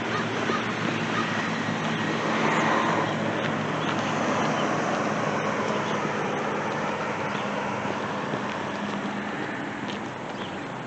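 Road traffic: a car's engine hum and tyre noise swelling a couple of seconds in and slowly fading as it passes.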